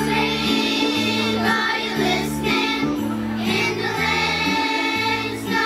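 Third-grade children's choir singing a Christmas song together over instrumental accompaniment with steady low notes.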